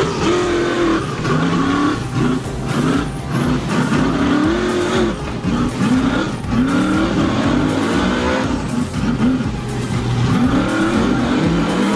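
Tube-chassis rock-bouncer buggy's engine revving hard in repeated bursts, its pitch rising and falling again and again as it claws up a steep slope.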